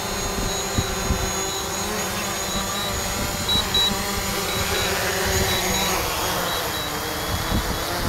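DJI Mavic Pro quadcopter's propellers whining as it hovers low and sets down on grass, the motor pitch falling away about five to seven seconds in as the rotors wind down. Wind buffets the microphone throughout.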